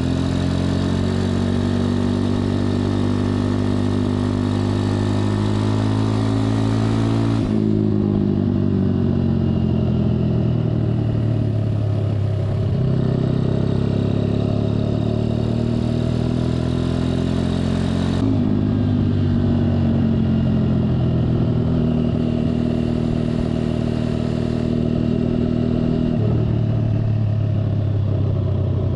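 Four-stroke single-cylinder engine of a Honda Dax minibike with an aftermarket Over exhaust, running under way. The exhaust note holds steady, with its pitch stepping down sharply a couple of times and shifting again later.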